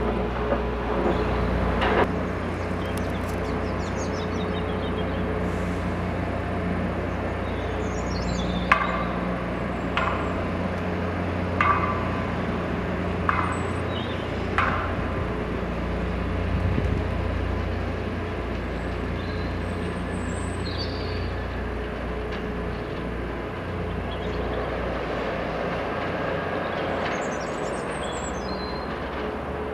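Distant train approaching on the line, heard as a steady engine drone with a humming tone. Several sharp clicks come in the first half, and a few high bird-like chirps come later.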